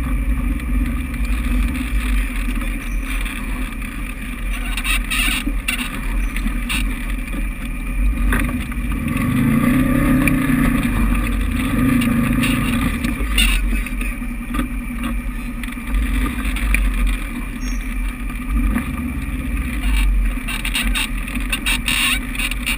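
Side-by-side UTV engine running, swelling in revs around the middle as the machine works over the rocky climb, with a few sharp knocks along the way.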